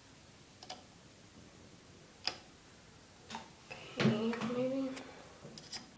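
Small glass nail polish bottles and their brush caps being handled, giving a few sharp ticks and clicks spaced a second or more apart. About four seconds in, a short voiced sound of about a second interrupts.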